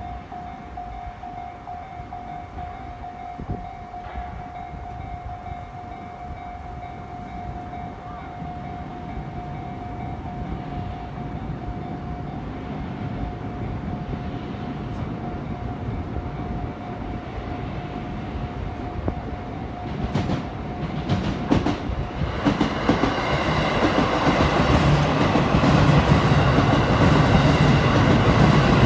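Japanese railway level-crossing alarm ringing with a steady electronic tone. About two-thirds of the way through, a train arrives and passes over the crossing, wheels clattering and growing louder to the end.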